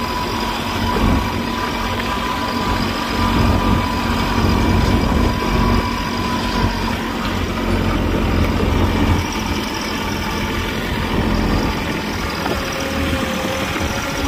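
Bad Boy 3026H compact tractor's diesel engine running steadily as the tractor is driven across grass.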